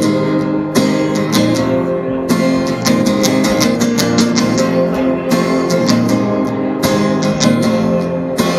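Guitar strummed in a steady rhythm, playing an instrumental passage between sung lines of a song.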